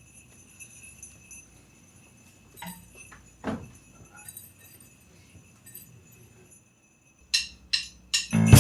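Sleigh bells jingling faintly, then shaken sharply twice near the end, just before the band's music comes in with a strong bass.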